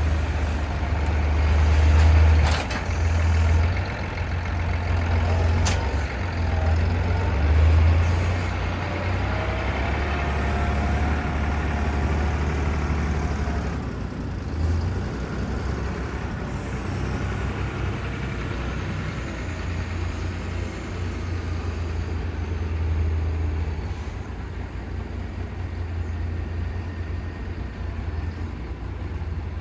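A heavy vehicle's engine running, swelling and easing in loudness, with two sharp knocks in the first few seconds and a wavering whine partway through.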